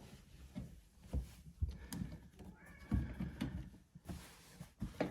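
Irregular low knocks and bumps from hands working on a dishwasher's hose fittings, with a brief creak about halfway through.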